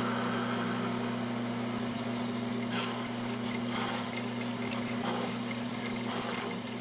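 Bandsaw running with a steady motor hum, its blade cutting short kerfs into a wooden block, with a brief faint cutting hiss a few times.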